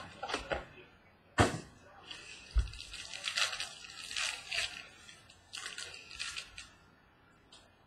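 A trading-card pack being handled and opened by hand: a sharp snap about a second and a half in, a soft thump, then several seconds of crinkling plastic wrapper that fades out near the end.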